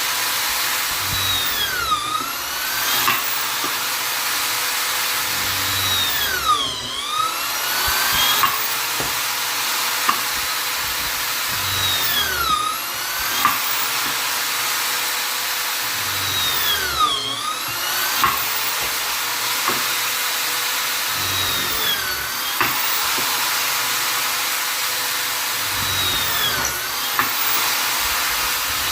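Vonder electric drill-driver running continuously while drilling into wood, its motor slowing and speeding up again about every five seconds as it bites and frees. A few sharp clicks are mixed in.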